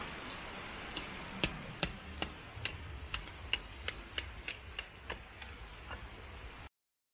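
A quick run of sharp clicks, about two or three a second and speeding up a little, over a steady rushing background; the sound cuts off abruptly near the end.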